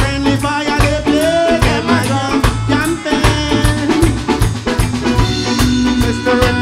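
Live reggae band playing, with the drum kit's snare and bass drum beat to the fore over bass guitar and keyboards in a steady rhythm.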